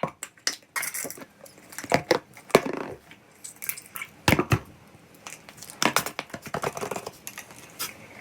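Irregular crunching and crinkling: a string of sharp crackles and snaps, the loudest about two, two and a half and four and a half seconds in.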